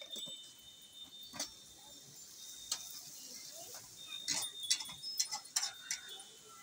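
Metal spatula scraping and clinking against a steel wok as sliced beef is stir-fried, over a faint steady sizzle. There is a single click now and then, then a quick run of scrapes and clinks in the second half as the stirring starts.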